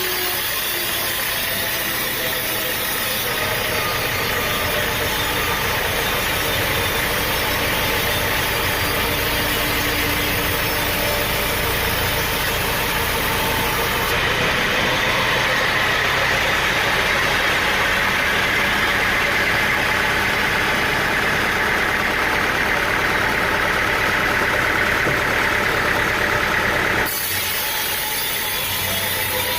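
An engine running steadily, its sound changing abruptly a few times.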